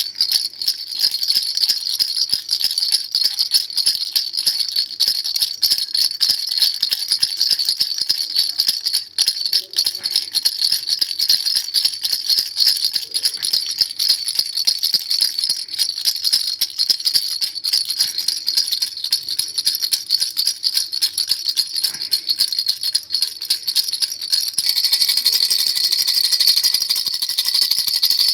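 Baby rattle shaken rapidly and without pause, a dense stream of fine rattling with a high ringing tone over it; about 25 seconds in it turns fuller and brighter.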